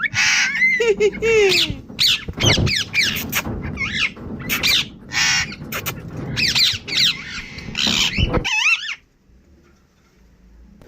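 Indian ringneck parrot squawking and chattering in a rapid string of short, shrill, gliding calls, mixed with speech-like mimicry, that stops abruptly about three quarters of the way through.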